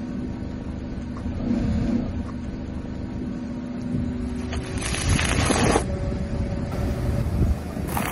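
A car rolling slowly on wet asphalt, its engine and tyres giving a steady low rumble with a faint hum. About five seconds in there is a louder scraping, rustling stretch lasting about a second.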